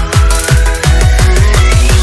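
Electronic dance music: heavy bass kick drums that come faster and faster into a roll, under a synth tone that rises steadily in pitch, building up to a drop.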